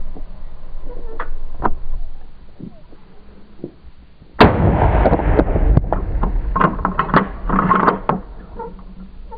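A single gunshot about four and a half seconds in, sharp and loud, followed by a few seconds of loud crackling, clattering noise that dies away near the end.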